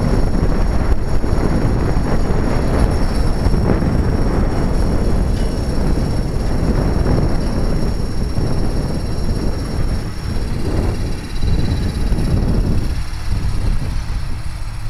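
Hobbyking HK500TT flybarless RC helicopter heard through its own onboard camera: heavy rotor-wash buffeting on the microphone over a faint, steady high whine from the motor and rotor head.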